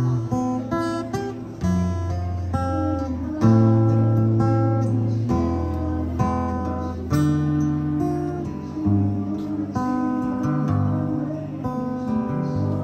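Music on a plucked string instrument that sounds like acoustic guitar: chords plucked over low bass notes that change every second or two.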